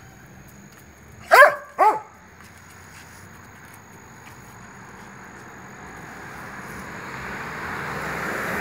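A dog barks twice, half a second apart, a little over a second in. Afterwards a steady hiss of a passing vehicle grows louder toward the end.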